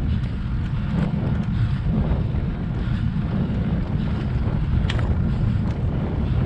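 Wind buffeting a bike-mounted camera's microphone as a bicycle rolls along a tarmac lane, a steady low rumble with tyre hiss. A few light clicks and rattles, the clearest about five seconds in.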